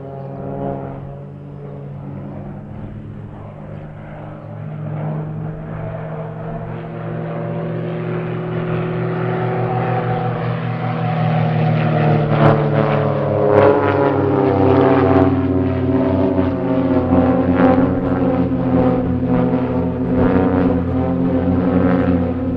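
Piston engines of three aerobatic propeller biplanes flying in formation, a steady droning note that grows louder through the first half as the formation comes closer, then stays loud.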